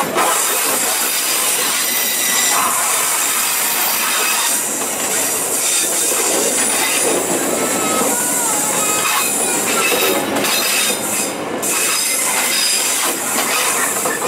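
Passenger coaches of the KA Argo Parahyangan passing at close range, wheels rumbling and clattering over the rails, with a thin wheel squeal rising and falling about halfway through.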